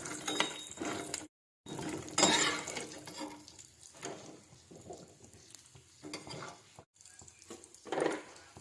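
Spatula stirring and scraping dry fruits in a pan, with clicks of the utensil against the metal. The sound drops out briefly twice.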